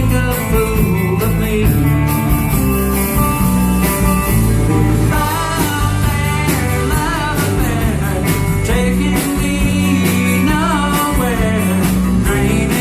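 A band playing a country-rock song, with steady bass notes and a regular drum beat under gliding lead lines.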